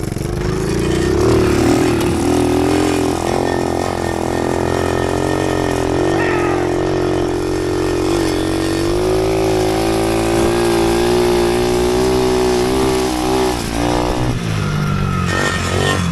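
Small off-road vehicle engine running under load while towing a rope, its pitch rising about a second in, holding steady, then dropping near the end.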